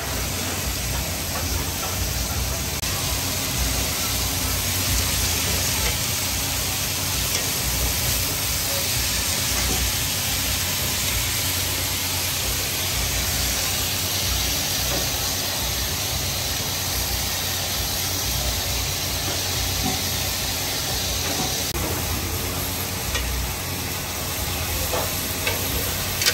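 Water buffalo steaks and corn on the cob sizzling steadily in hot cast-iron grill pans, with a low steady rumble underneath.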